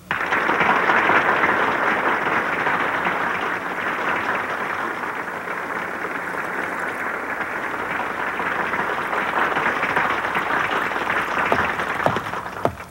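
A large crowd applauding steadily, then stopping abruptly just before the end.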